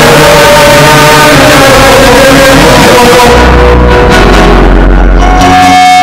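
Emergency alert alarm sound, very loud and heavily distorted: steady tones over harsh noise. About three seconds in a deep rumble sets in, and near the end a single steady high tone sounds.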